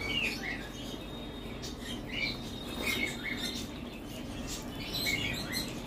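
Close-miked eating sounds: wet lip smacks and chewing of rice and curry eaten by hand, a scatter of short clicks over a steady low hum.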